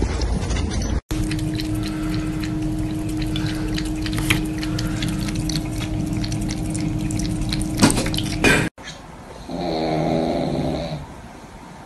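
Running, splashing water with a steady low hum and scattered clicks that cuts off abruptly; then a pug gives a short snore.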